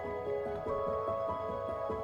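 Background music: a gentle new-age instrumental, a steady run of notes over held tones.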